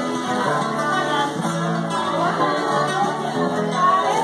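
Acoustic guitars strumming a song together, with voices singing over them.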